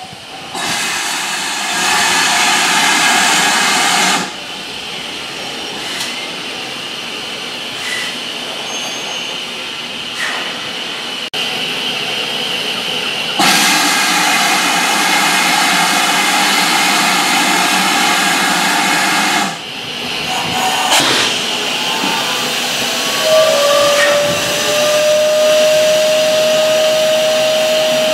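GWR Manor-class steam locomotive 7820 Dinmore Manor standing and letting off steam. There is a steady hiss with two loud bursts of hissing steam, each several seconds long. Near the end a thin, steady whistling tone begins.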